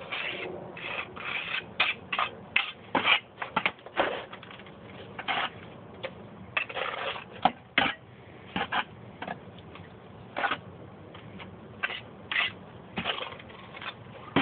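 Irregular scrapes, clicks and knocks of hand work as a water table and its wire bracket are fitted into place, some strokes sharp, others short rasping scrapes, at uneven intervals.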